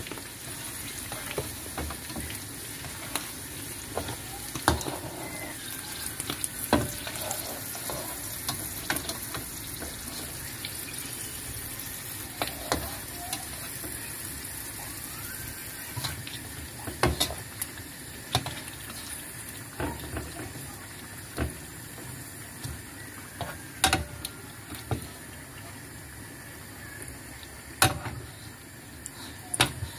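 Pre-cooked chicken pieces deep-frying in hot oil in a wok, a steady sizzle, fried until dry. Occasional sharp clicks and knocks come through as a slotted spatula turns the pieces in the pan.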